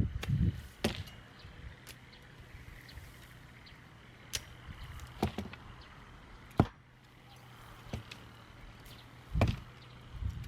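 A handful of separate sharp knocks and clatters over a steady low hum, the sharpest about two-thirds through, with low rumbles near the start and near the end.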